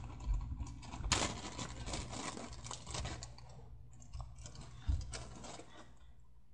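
Crackly rustling of a small bag of raisins being handled and opened, dying down after about three and a half seconds.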